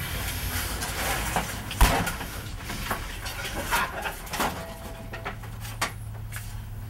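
Scattered knocks and rustling, with one sharp thump about two seconds in and smaller knocks later.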